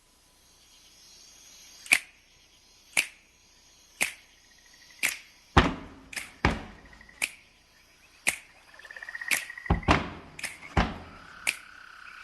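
Sparse electronic music: sharp clicks about once a second over a faint hiss, with a few deep thumps, short beeping trills and a held electronic tone near the end.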